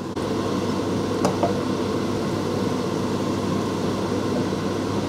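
Onions and ground spices frying in a pot over a high gas flame, giving a steady sizzle.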